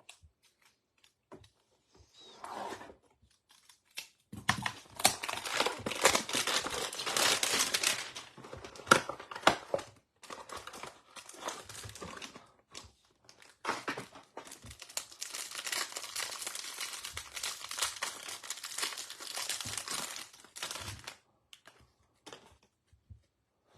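Crinkling and tearing of a trading-card hanger box's plastic wrapping as it is opened, in a few long bouts of crackling with short pauses between.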